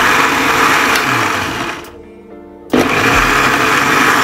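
Electric blender (mixer-grinder) motor grinding chopped coriander, mint and green chillies with a little water into green chutney. It runs steadily, winds down about two seconds in, then starts again abruptly under a second later.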